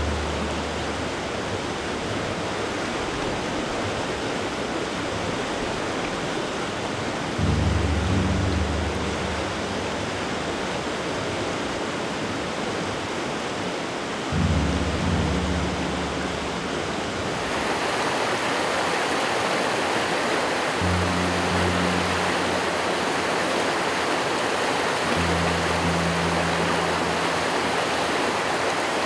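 Brook water rushing steadily, changing to a louder, brighter rush at a cut about two-thirds of the way through. Low sustained music notes come and go over the water several times.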